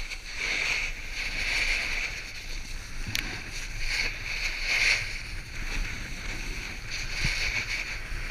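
Snowboard sliding and carving over soft snow: a hissing scrape that swells and fades with each turn. A single sharp click about three seconds in.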